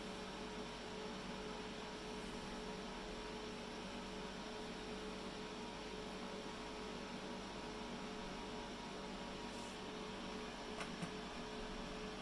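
Dell PowerEdge T630 server running, a steady hum of its cooling fans with a few constant tones. Two faint clicks near the end.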